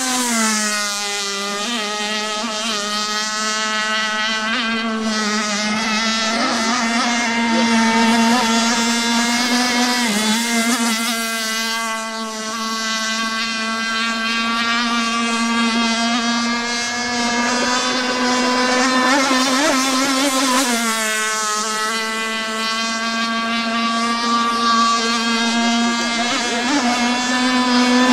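Stock Zenoah 260 single-cylinder two-stroke gas engine of an RC shallow-vee race boat running flat out with a steady, high-pitched buzzing whine. The pitch drops about a second in and climbs again near the end as the boat goes round the pond.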